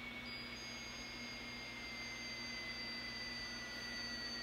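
Static hiss from a National NC-173 valve communications receiver tuned to the 20-metre PSK31 frequency, with a few thin whistling tones slowly sliding down in pitch: received signals drifting as the old set's tuning and BFO wander.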